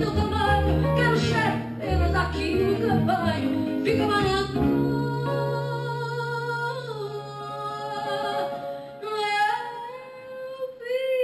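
A woman singing live to two acoustic guitars and a double bass. About four seconds in, the strummed accompaniment drops away to one long-held low note under her drawn-out sung notes. Near the end her voice carries on almost alone.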